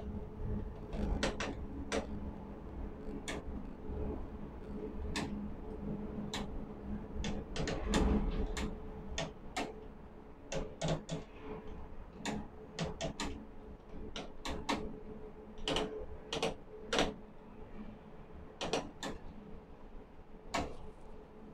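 Overhead ladle crane lifting a ladle of molten steel, heard from inside the operator's cab: a steady electric hum and low machinery rumble, swelling around the middle, with irregular sharp clicks throughout.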